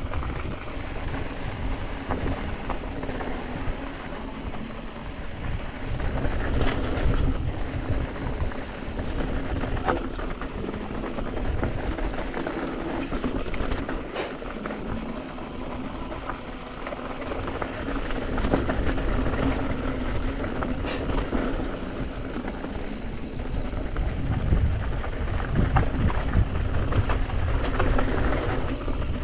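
Wind rushing over an action camera's microphone while a Yeti SB165 mountain bike rolls down a rocky gravel singletrack, its tyres crunching and its frame and parts rattling with frequent knocks over stones. The noise swells on the faster stretches, around six seconds in and again near the end.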